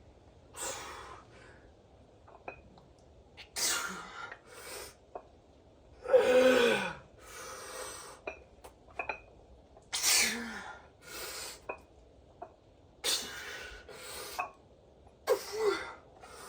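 A man's hard, forceful breaths during exercise reps, one every second or two, some pushed out as strained grunts. The loudest grunt comes about six seconds in and falls in pitch. A few faint light clicks fall between the breaths.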